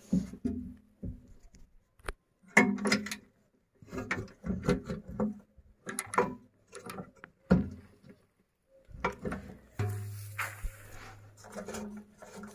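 Irregular knocks, clanks and rustling as a red feed grinder is worked on by hand at its outlet and a woven plastic feed sack is shifted about. A low steady hum sounds for about two seconds near the end.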